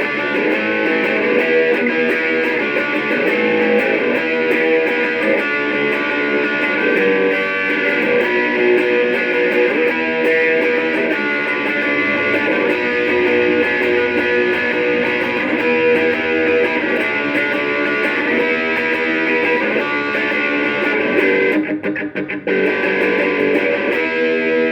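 Electric guitar played through a Joyo British Sound JF-16, a Marshall-style amp simulator pedal: strummed, ringing chords. The playing breaks off briefly about three seconds before the end, then resumes.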